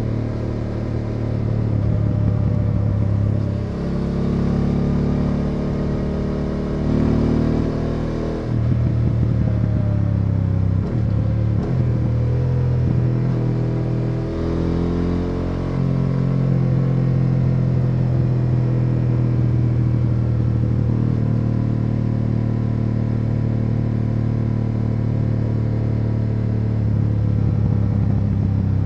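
BMW F850 GS Adventure's parallel-twin engine heard from the rider's seat, with wind noise: in the first half it slows and shifts down from fifth to third gear, its pitch stepping and falling several times, then it runs steadily in third gear for the rest.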